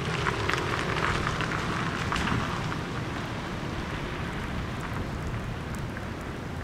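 A Toyota Prius driving away on a wet road: tyres hissing on the wet pavement, loudest in the first couple of seconds and then settling to a lower steady level as the car recedes.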